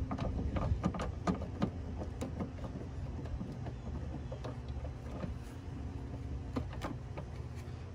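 Scattered light clicks and knocks of hands handling parts and tools in a truck's engine bay, most of them in the first two seconds and a few more later, over a steady low hum.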